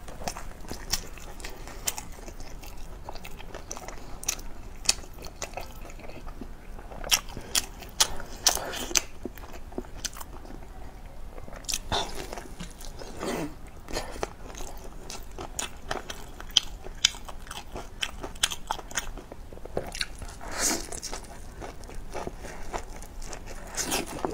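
A person biting into and chewing filled wrapped rolls, close to a lapel microphone: irregular bites, crunches and wet mouth clicks, with short pauses between mouthfuls.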